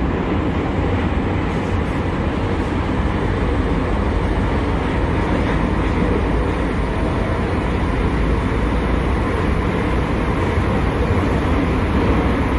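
Metro train running, heard from inside the carriage: a steady, loud rumble and rushing noise that does not change.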